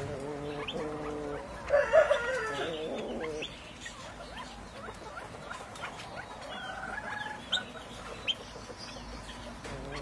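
Fowl clucking and calling: a run of pitched calls in the first few seconds, loudest about two seconds in, then fainter short high calls.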